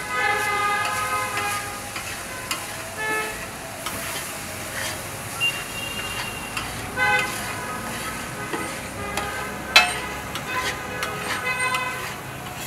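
A metal spatula scraping and stirring chopped meat on a large steel griddle tray, with the meat sizzling. One sharp knock about three-quarters of the way in is the loudest sound. Street traffic with tooting car horns runs behind it.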